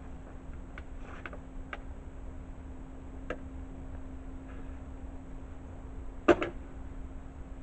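A heavy kukri blade chopping into a target: a few light clicks and taps, then one sharp, hard double strike about six seconds in, over a steady low hum.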